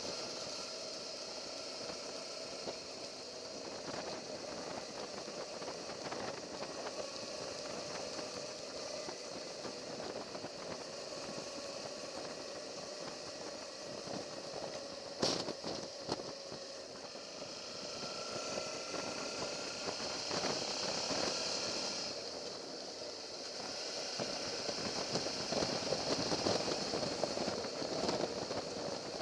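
Suzuki V-Strom motorcycle running steadily while being ridden, its engine hum mixed with steady rushing noise. A single sharp knock comes about halfway through.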